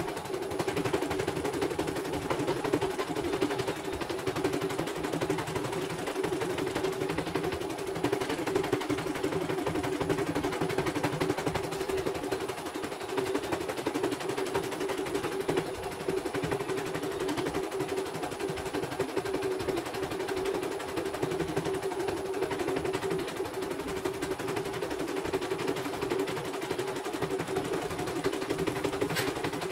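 CNY portable computerized embroidery machine stitching a design, with a fast, even needle clatter that runs without a break.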